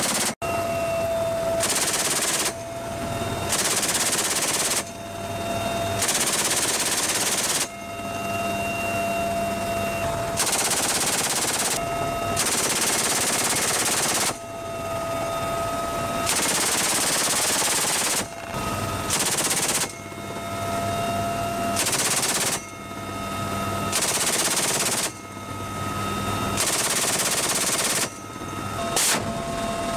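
Helicopter door-mounted six-barrel rotary minigun (GAU-17/A) firing at night in repeated bursts of one to two seconds, about a dozen in all, each a continuous buzzing stream of shots. Between bursts, the helicopter's steady engine whine comes through.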